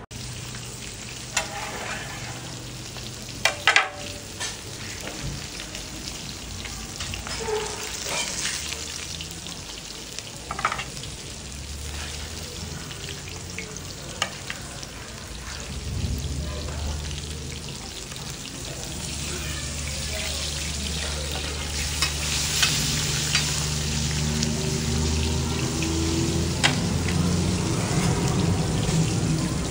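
Hilsa steaks sizzling as they fry in oil on a large flat iron pan, with scattered sharp clinks of a metal utensil. A steady low hum joins in about halfway through.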